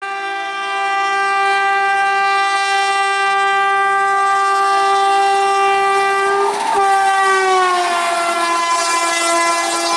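Electric locomotive's horn held in one long continuous blast as the train approaches and passes; the pitch drops about three-quarters of the way through as the locomotive goes by. Wheel and rail noise rises near the end.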